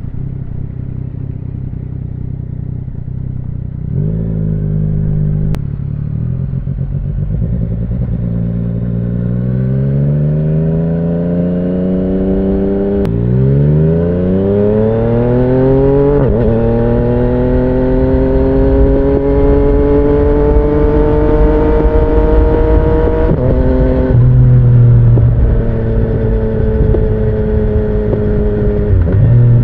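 2017 Yamaha MT-09's three-cylinder engine through an Akrapovic carbon full exhaust: it idles low and steady, then pulls away about four seconds in. The revs climb, fall sharply for an upshift about midway, climb again with a second shift, and settle into a steady cruise with a brief drop in revs near the end.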